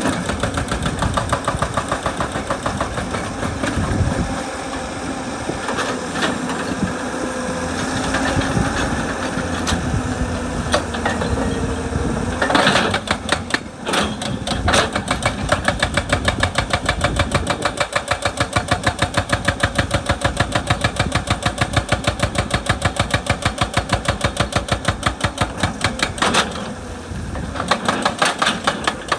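Excavator-mounted hydraulic rock breaker hammering rock in a rapid, regular run of blows, about five or six a second, over the excavator's diesel engine running. The hammering breaks off briefly about halfway through and again near the end.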